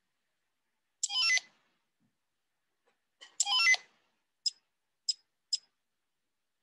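Two short electronic sound effects from a computer lesson animation, each a quick run of falling beeping tones, followed by three sharp clicks about half a second apart.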